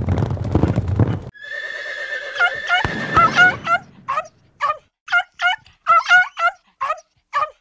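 Cartoon sound effects of a horse: hoofbeats of a gallop for about the first second, then a long, wavering whinny. It is followed by a run of about ten short, high calls.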